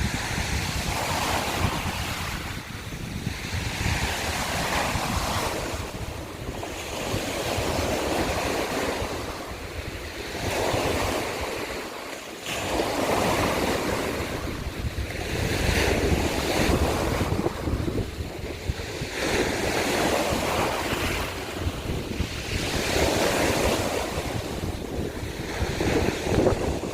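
Small sea waves breaking and washing over a shore of broken scallop shells, the wash swelling and falling back every two to three seconds. Wind rumbles on the microphone underneath.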